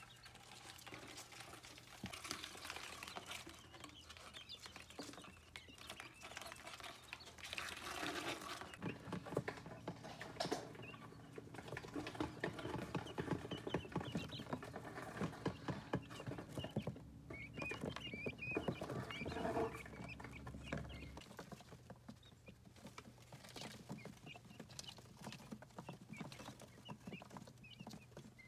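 Quail chicks scratching and pecking on paper towel around a plastic bottle feeder, with handling rustles and a few faint high peeps. The pattering and rustling is busiest in the middle stretch.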